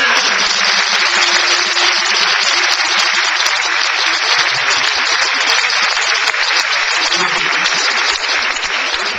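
Crowd applauding, dying away near the end, with music playing underneath.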